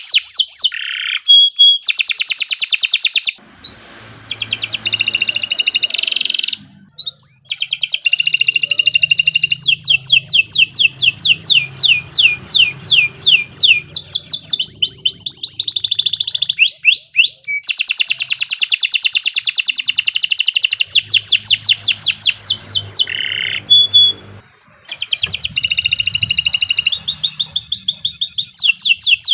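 Domestic canary singing a long, vigorous song of fast trills. Each phrase is a rapid run of repeated sweeping notes, and the phrase changes every second or two, with a few brief pauses.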